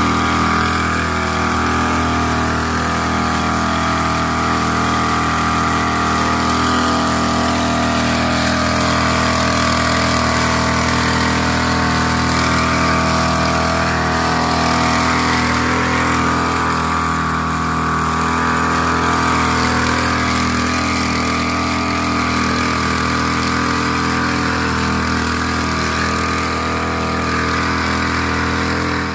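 Knapsack power sprayer's small engine running steadily at a constant speed while it pumps spray.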